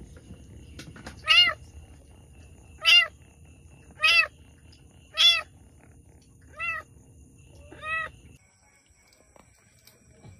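Queen cat in labour meowing: six short meows about a second and a half apart, each rising then falling in pitch, the last two quieter.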